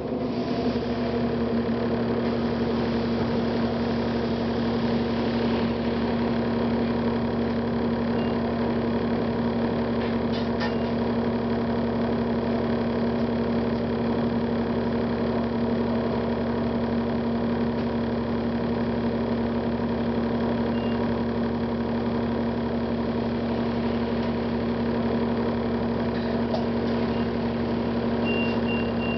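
Cummins ISL inline-six diesel engine of a 2009 Gillig Advantage transit bus running steadily. A short high electronic beep sounds twice, and about a second before the end a fast, even run of the same beeps begins, several a second.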